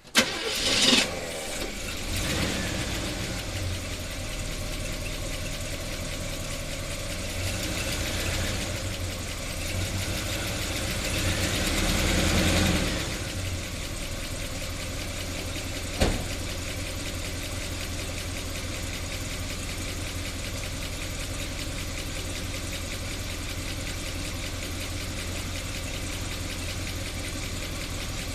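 1976 Chevy Blazer engine starting abruptly, then running; its speed swells briefly near the middle before it settles into a steady idle. A single sharp click sounds about sixteen seconds in.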